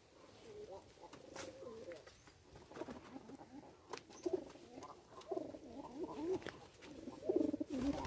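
Domestic racing pigeons cooing in a wooden loft: a string of low, warbling coos one after another. A few light knocks come from the slatted wooden loft door as it is handled.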